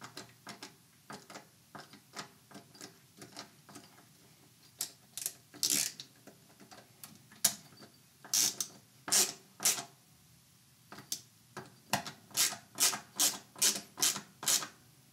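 A hand screwdriver ratchets with sharp, irregular clicks as it drives the MOS mounting-plate screws into a Glock 19 Gen 5 MOS slide. The clicks come in runs and grow louder and more regular near the end, at about two or three a second.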